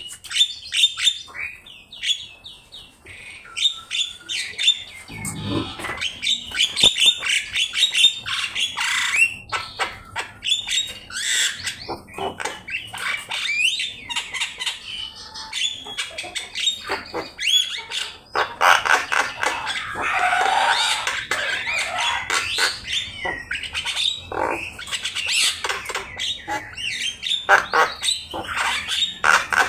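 Javan myna singing vigorously: a long, varied run of whistles, rapid chattering notes and harsh squawks with hardly a pause.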